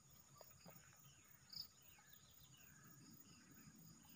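Near silence with a faint evening chorus of insects: a steady high-pitched trill, and scattered short chirps of insects or birds, one a little louder about a second and a half in.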